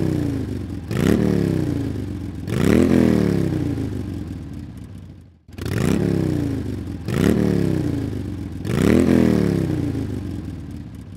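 Motorcycle engine being revved hard in six throttle blips, in two runs of three with a short gap between. Each blip climbs quickly and then winds slowly back down.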